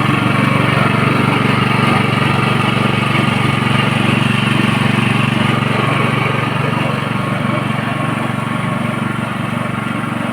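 Coconut milk press machine running with a steady motor hum, easing off slightly near the end.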